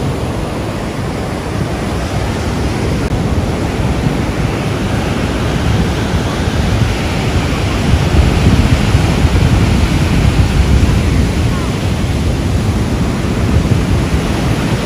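Ocean surf breaking and washing up the beach, a steady rushing that grows louder about halfway through, with wind rumbling on the microphone.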